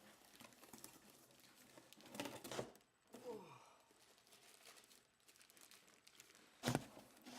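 Styrofoam and plastic packing being handled and pulled out of a cardboard box, crinkling and rustling in scattered bursts. A sharp knock comes near the end.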